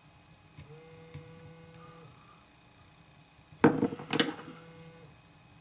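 A short clatter at the fly-tying bench: a sharp knock a little past halfway, then a second knock about half a second later, heard over a faint hum.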